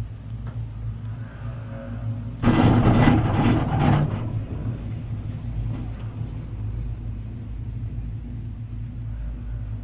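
Steady low hum and rumble of a chairlift ride in motion, with one loud rushing burst about two and a half seconds in that lasts about a second and a half.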